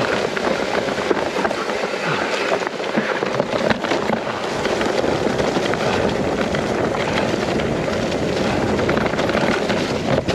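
Mountain bike riding over a rough trail: tyres rolling over dirt and stones and the bike rattling, a steady noise with many small knocks and clicks.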